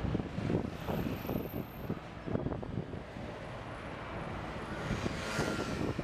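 Outdoor city background: a steady low rumble of passing traffic, with a hiss that swells about five seconds in.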